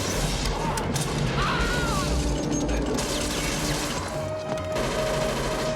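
Action-film soundtrack: a music score mixed with crashing and smashing sound effects, with short held tones in the second half.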